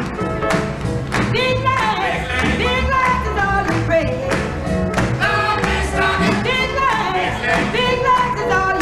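Upbeat boogie-woogie / rhythm-and-blues number played by a band with a singer, over a steady driving beat.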